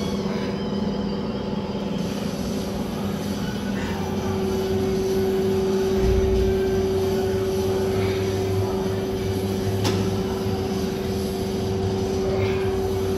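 Steady mechanical hum with a constant held tone that grows a little stronger a few seconds in, and a single faint click near the end.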